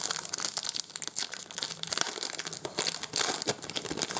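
Trading card pack wrapper being torn open and crinkled by hand, a dense irregular crackling throughout.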